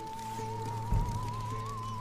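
Intro music: a single high held note that wavers with growing vibrato over low sustained drone notes, with a deep hit about a second in.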